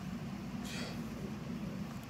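A sulcata tortoise biting off a mouthful of clover and grass, a single short crunch about three-quarters of a second in, over a steady low rumble.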